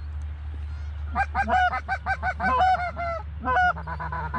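Geese honking: many short, overlapping honks begin about a second in and keep coming rapidly, over a steady low rumble.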